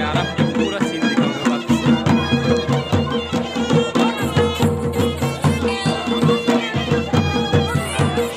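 Traditional Himachali folk music: large double-headed drums beat a steady rhythm while a reed wind instrument plays the melody over a held drone.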